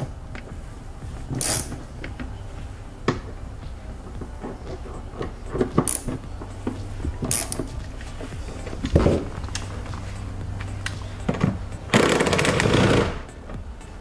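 Socket wrench, extension and socket clicking and knocking as they are fitted onto the seat belt anchor bolts, with a louder rattle lasting about a second near the end.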